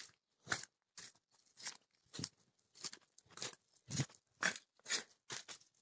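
Footsteps crunching on a gravel and dirt garden path, about two steps a second at a steady walking pace.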